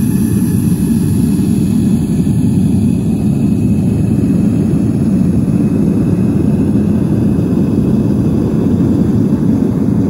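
Propane burner firing steadily into a small stainless-steel pot furnace, a loud, even, low rushing noise that holds unchanged. The furnace is at full heat, melting brass scrap in a graphite crucible.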